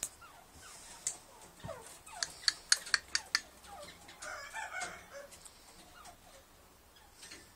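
Caged black francolins giving soft, short call notes that fall in pitch, with a brief chattering cluster about four seconds in. A quick run of about eight sharp clicks, the loudest sounds, comes between two and three and a half seconds in.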